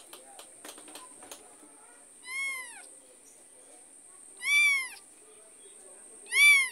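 Young kitten meowing three times, each a high arching cry that rises and falls in pitch, louder each time. A few soft clicks in the first second or so.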